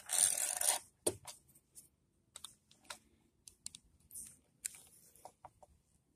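Plastic electrical plugs being handled: a brief rustle near the start, then a series of short, sharp plastic clicks as a plug-in outlet tester is fitted into a GFCI plug adapter to check for power.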